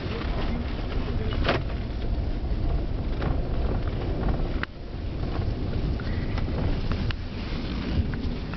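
A car driving, with steady road and engine rumble heard from inside the cabin. A few sharp clicks and knocks sound over it, one with a brief drop in the rumble about halfway through.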